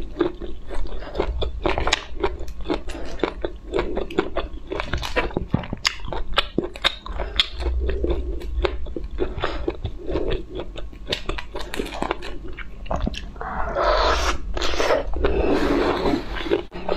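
Close-miked chewing and crunching with many sharp crackles, from cooked shrimp being peeled by hand and eaten; two louder stretches of crackling come near the end.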